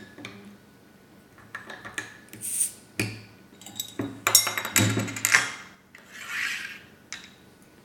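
Drink bottles being opened by hand: caps twisting and scraping, with a sharp click about three seconds in and a louder clatter of glass and caps around four to five seconds. The soda bottle opens without an audible pop.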